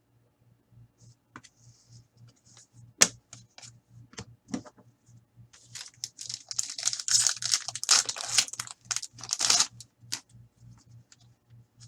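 A foil hockey card pack wrapper being torn open and crinkled, with scattered sharp clicks from handling the pack and cards. One loud click comes about three seconds in, and the densest crinkling runs from about six to ten seconds in.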